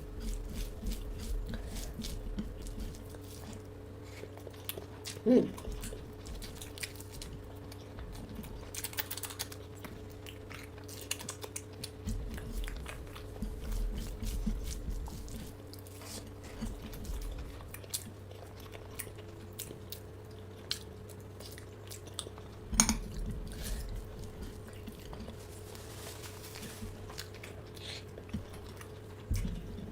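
Close-miked chewing and biting of fried food, with soft irregular crunches and mouth noises, and two louder sharp knocks, one about five seconds in and one about two-thirds of the way through. A steady low hum runs underneath.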